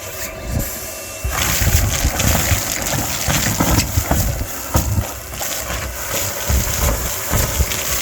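Car wash vacuum running loud, its hose sucking in material with a dense rushing noise, irregular rattles and knocks, and a low rumble. The noise steps up about a second and a half in.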